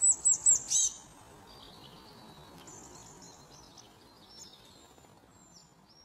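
European robin singing: four loud, quick, high notes in the first second, then a softer, thin warbling phrase that trails off.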